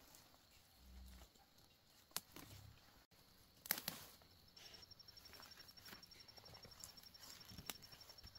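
Quiet rustling of leaves and a few sharp snaps of stems as wild fern shoots and greens are picked by hand. From about halfway a faint, steady, high, rapidly pulsing chirp runs underneath.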